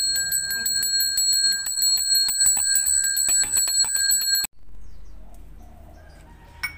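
Balinese priest's hand bell (genta) rung fast and without pause during prayer: a steady high ringing with rapid clapper strikes. It cuts off abruptly about four and a half seconds in, leaving faint background sound and a single sharp click near the end.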